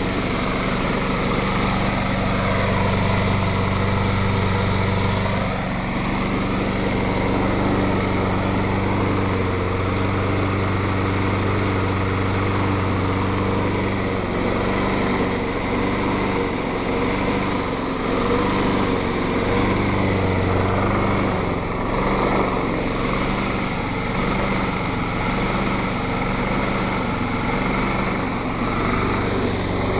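Briggs & Stratton single-cylinder engine on a Scotts LM21SW push mower running, with its sound swelling and easing off repeatedly as it surges. The owner puts the surging down to valves that are not seating properly and still need lapping.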